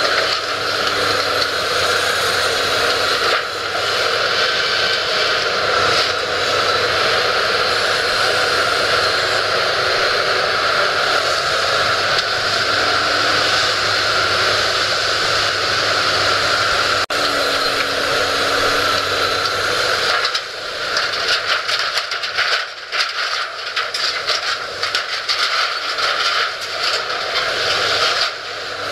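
Demolition excavator running with a steady engine drone and hydraulic whine; about two-thirds of the way in, rapid irregular crunching and clattering starts as its grab tears into the building's sheet metal and steel frame.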